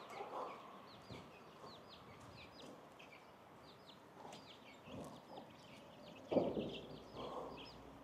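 Chickens clucking faintly, with many quick, high, falling chirps throughout; the loudest cluck comes about six and a half seconds in.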